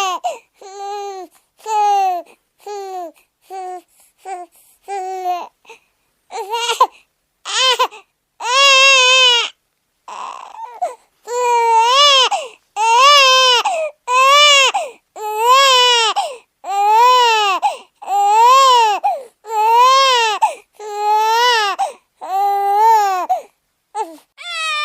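Baby crying sound effect: a run of short, choppy sobs for the first few seconds, then longer wails that rise and fall in pitch, about one every one and a half seconds.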